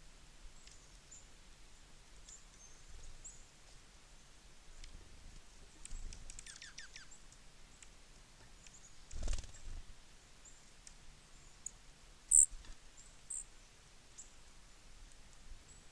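Small birds at a feeder calling with scattered short, high chips. A quick run of falling notes comes about six seconds in, and two sharp high peeps come after twelve seconds, the first the loudest sound. A dull thump comes about nine seconds in.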